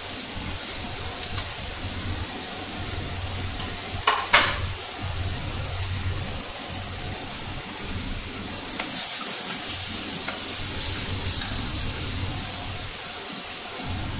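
Chopped tomatoes and onions frying in oil in an aluminium kadai, a steady sizzle, with one sharp clink about four seconds in.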